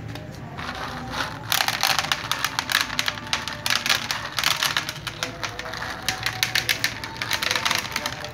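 Cats crunching dry kibble: a rapid, irregular clatter of crunches that starts about a second and a half in, with faint meowing now and then.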